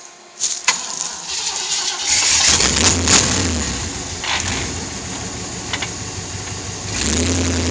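1978 Jeep Cherokee's engine being restarted: the starter cranks and the engine catches about two seconds in, then runs, revving up again near the end. A few sharp clicks sound along the way.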